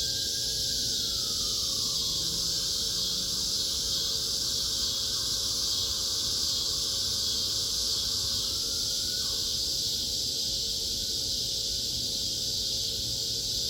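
Evening cicada chorus: a steady, unbroken high-pitched drone. Under it a fainter, lower tone falls in pitch over the first two seconds, holds, then climbs back up about nine seconds in and breaks off.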